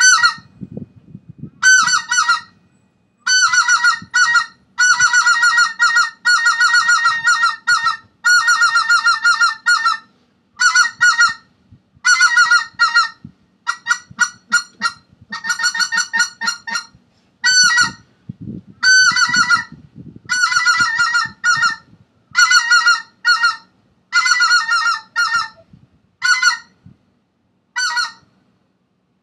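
Speck (greater white-fronted goose) calling: about twenty bursts of rapid, high-pitched yelping notes, each under two seconds, with short gaps between.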